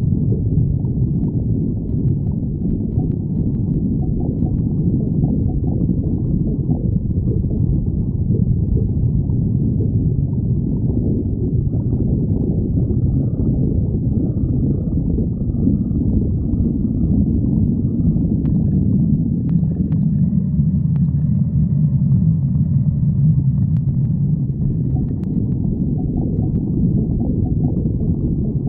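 Human stomach growling: continuous low rumbling and gurgling, with faint higher whining tones coming in about halfway through.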